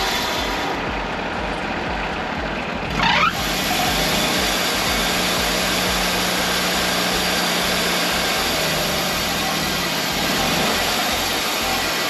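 Wood-Mizer LT40 sawmill's gas engine running steadily while its hydraulics are worked. There is a brief sharp glide in pitch about three seconds in, then a steady hum for several seconds. The hydraulics are sluggish and the fluid cold and thick; the hydraulic pump draws enough to make the engine want to die.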